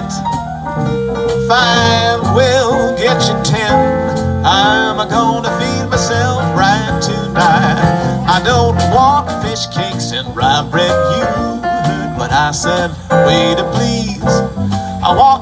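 Live jazz big band playing a swing tune, with a male singer scat-singing wordlessly over the rhythm section's stepping bass line and cymbal and drum hits.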